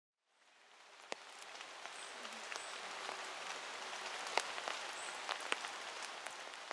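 Steady rain pattering, with sharper taps of single drops now and then. It fades in over the first second or two.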